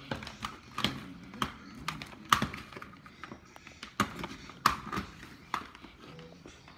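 A series of irregular clicks and knocks from things being handled, about a dozen of them, with the sharpest a little past two seconds in and around four to five seconds in.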